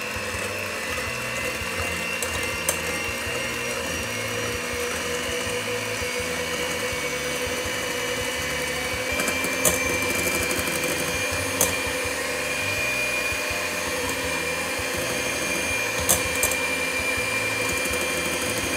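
Electrolux electric hand mixer running steadily, its beaters whipping whole eggs and sugar into a thick foam in a stainless steel bowl. A few sharp clicks sound over the motor.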